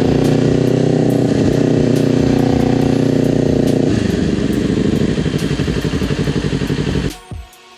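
Motorcycle engine running under way at low speed. About halfway through its note drops and turns choppier as it slows, then the sound cuts off abruptly near the end.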